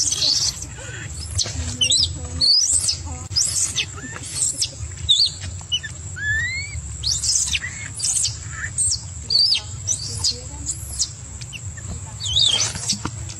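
Baby macaque crying: repeated shrill squeals and chirps, roughly one a second, some rising and some falling in pitch, over a steady low hum.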